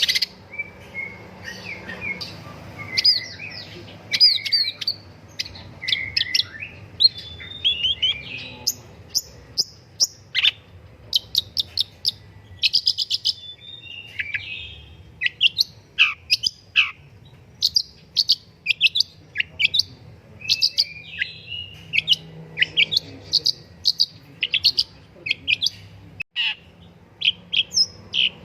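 Long-tailed shrike (pentet, or cendet) singing a fast, varied song of sharp chirps, quick downward-sweeping notes and short rapid trills, with hardly a pause throughout.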